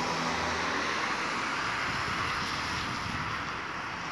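Street traffic: a steady hiss of passing vehicles that swells about a second in and eases toward the end.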